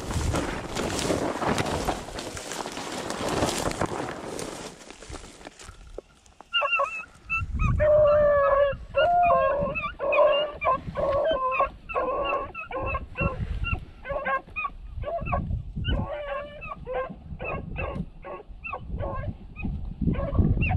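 Dry brush rustling and crackling underfoot for the first few seconds. Then beagles baying, with drawn-out calls breaking into short, choppy ones that repeat, the voice hounds give when running a rabbit.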